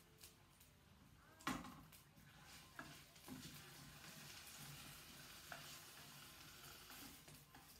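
Potatoes and carrots sizzling quietly in a frying pan as they are stirred with a metal utensil. The sizzle grows stronger from about three seconds in. A sharp clack of the utensil on the pan about a second and a half in is the loudest sound, with a few lighter clicks after it.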